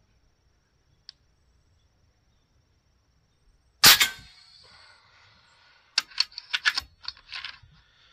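FX Panthera 500 .30-calibre pre-charged pneumatic air rifle, fitted with an Impulse Air 1350 moderator, firing one shot about four seconds in: a single sharp crack with a short ringing tail. A quick run of clicks follows about two seconds later.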